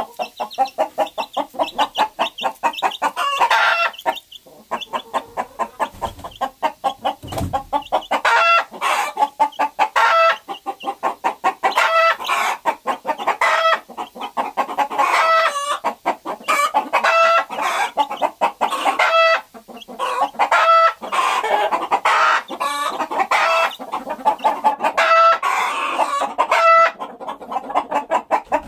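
A flock of chickens clucking in quick runs of pulses, with drawn-out calls every few seconds.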